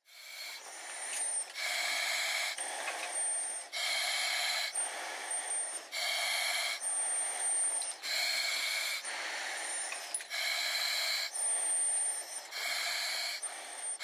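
Firefighter breathing through an SCBA mask and regulator: steady, even in-and-out breaths, about one every two seconds.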